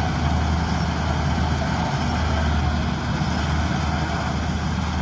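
Large diesel farm machine's engine running steadily, a low, even drone.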